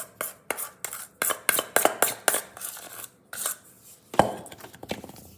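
Metal spoon scraping and clinking against a stainless steel mixing bowl as a thick cake batter is knocked out into a springform pan: a quick run of clinks and scrapes, several a second, with one louder knock a little after four seconds in.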